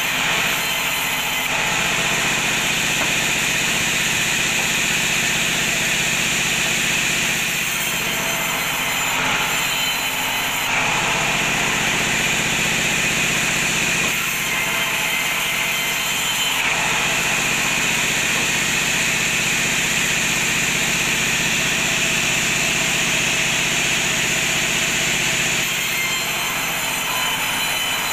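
Sawmill bandsaw running and ripping a teak slab lengthwise into boards: a loud, steady machine noise with the blade's cutting sound, which shifts several times as the wood is fed through.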